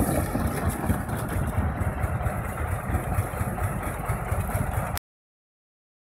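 A 4YZ-4 corn and silage harvester running steadily as it unloads corn ears into a truck bed, its engine and machinery making a dense low rumble. The sound cuts off abruptly about five seconds in.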